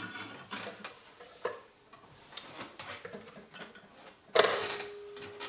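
Viking Husqvarna 6010 sewing machine stitching in short stop-start runs: irregular ticks and clicks, then a louder burst of running about four seconds in, followed by a steady hum. The owner says its drive belt is still slipping.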